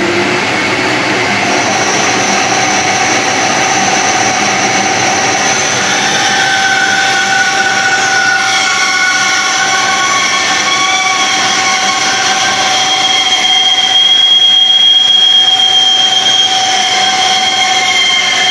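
Numatic vacuum dust extractor running steadily, hosed to an Axminster Craft bandsaw whose blade is cutting a curve through an inch-thick board. Higher whining tones come and go over the extractor from about six seconds in.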